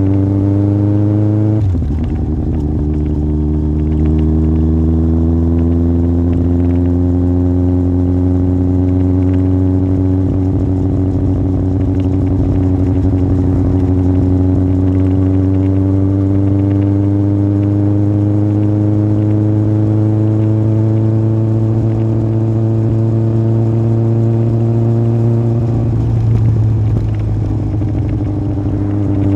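Yamaha Fazer 1000 inline-four engine through a MIVV aftermarket exhaust, ridden on the road. The note drops sharply about two seconds in, an upshift, then climbs slowly and steadily as the bike pulls in gear. Near the end it turns briefly rougher before settling.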